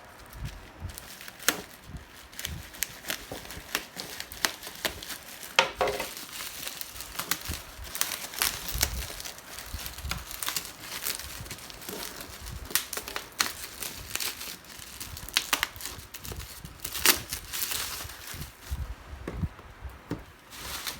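Packaging of a boxed router being handled and unwrapped: irregular crinkling and crackling with scattered sharp clicks throughout.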